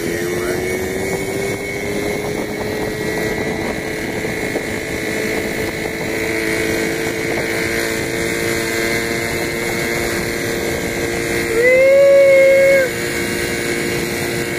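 Moped engine running steadily at riding speed, its note climbing over the first few seconds and then holding. About twelve seconds in, a louder wavering tone rises over it for just over a second.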